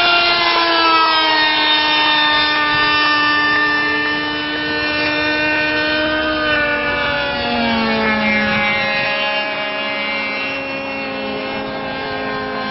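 Radio-controlled model airplane engine running in flight, a steady multi-toned drone. Its pitch slides down about a second in and again around eight seconds in, as the plane passes and changes throttle.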